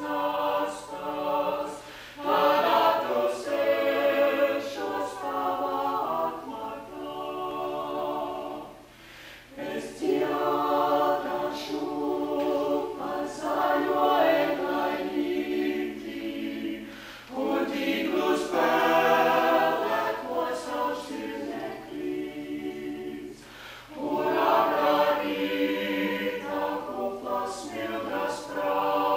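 Small mixed vocal ensemble of men and women singing a cappella in harmony. The phrases break off briefly three times, near 9, 17 and 24 seconds, before the singing resumes.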